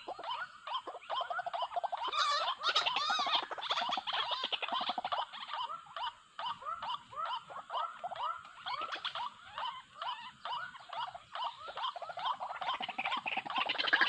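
White-breasted waterhen calls: a fast, unbroken run of repeated croaking notes, several a second, louder for a stretch about two seconds in.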